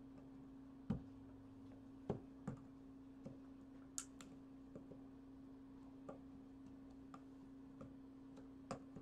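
Scattered light clicks and taps of hand tools and a plastic LED bulb being handled on a wooden table, over a steady low hum. The clicks come from the bulb being worked in the jaws of a pair of pliers.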